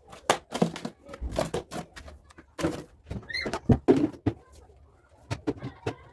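Irregular knocks and clatter of containers and fridge parts being handled as a fridge is emptied for cleaning, with a brief squeak about three and a half seconds in.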